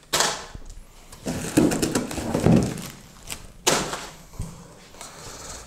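Items being set down on a table: a sudden thump at the start, handling and rustling noise, and a second sharp knock about three and a half seconds in.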